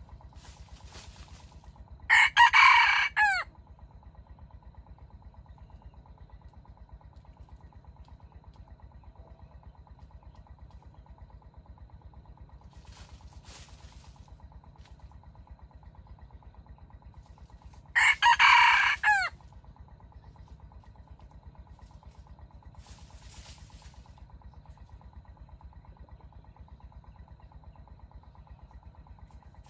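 Red junglefowl rooster crowing loudly twice, about sixteen seconds apart. Each crow is short and clipped, about a second and a half, and falls in pitch at the end.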